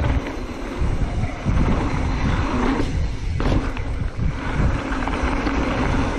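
Wind buffeting a rider-mounted camera's microphone as a mountain bike rolls down a dirt trail, with the tyres rumbling and the bike rattling over the ground.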